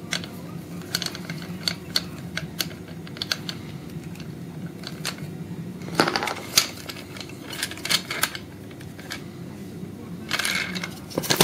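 Irregular small clicks and taps of metal and plastic parts being handled while a Damper freeline skate is assembled by hand: wheel, bolts and plastic spacers knocking against the metal plate. A louder clatter comes about six seconds in, and a brief scraping rustle near the end.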